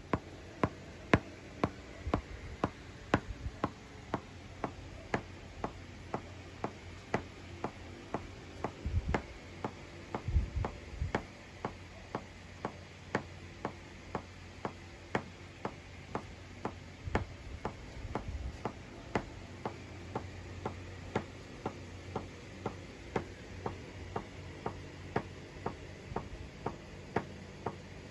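GarageBand's metronome clicking steadily at 120 bpm, about two sharp ticks a second. This is the click that the video calls the clipping sound heard while recording. A few dull low thumps come about a third of the way in and again past the middle.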